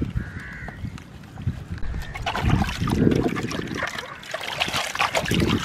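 Water splashing and sloshing in a basin as a clear plastic Copic marker case is scrubbed and rinsed by hand, with the plastic clicking and knocking. The splashing grows heavier about two seconds in.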